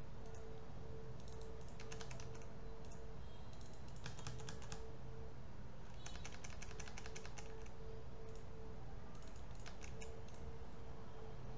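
Computer keyboard keys clicking in about four short bursts of rapid keystrokes, over a steady low electrical hum.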